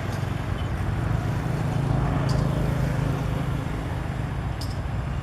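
Komatsu bulldozer's diesel engine running under load with a steady low drone that swells a little about two seconds in. Two faint clicks are heard, one midway and one near the end.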